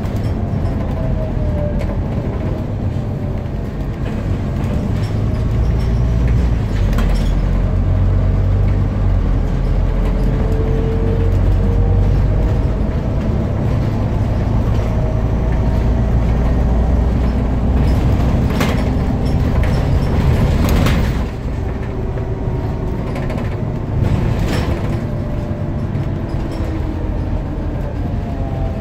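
Scania CN230UB single-deck bus heard from inside the saloon while driving: a low engine rumble that pulls harder for a stretch, with a whine that slowly rises and falls as the speed changes. A few sharp clatters from the body in the second half.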